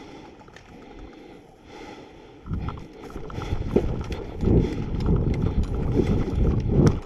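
Running footsteps through tall field grass: heavy footfalls about twice a second with grass brushing against the legs, starting about two and a half seconds in.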